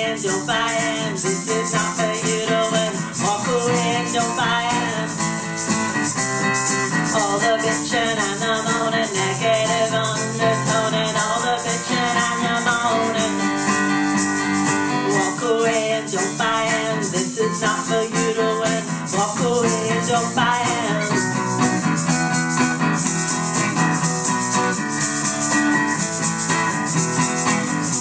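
Acoustic guitar strummed with maracas shaking steadily, and a wavering melody line over them, in a stretch of the song with no lyrics.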